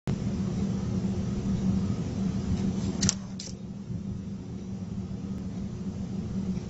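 A steady low machine hum with a fan-like hiss. Two short sharp clicks come about three seconds in, and after them the hiss is quieter.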